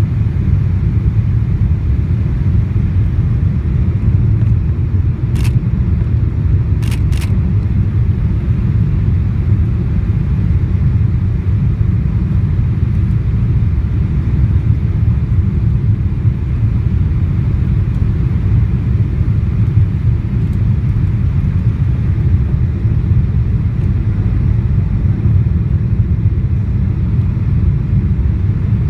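Steady low rumble of engine and airflow noise inside the cabin of a Boeing 777-200ER on final approach with flaps extended. A few brief clicks come about five and seven seconds in.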